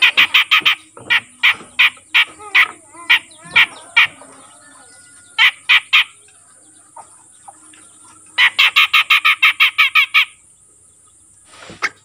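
Untrained cucak jenggot (grey-cheeked bulbul) calling in rapid runs of harsh, chattering notes, about eight a second: a run at the start, scattered notes over the next few seconds, a short burst around six seconds in, and a longer run from about eight to ten seconds in.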